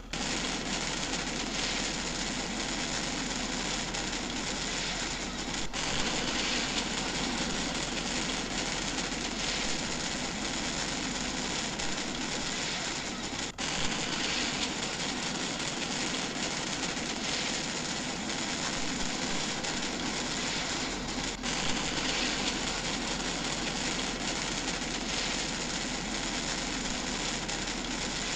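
Steady, loud hiss of water with no change in pitch, broken by brief dips about every eight seconds.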